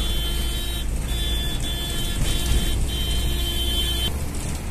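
Tata 709 bus's diesel engine and road noise, heard from inside the cab while driving. A high steady tone sounds over it three times, about a second each.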